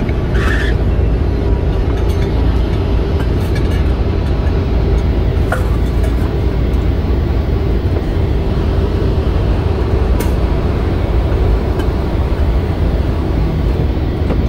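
Steady road and engine noise inside a tractor-trailer's cab at highway speed.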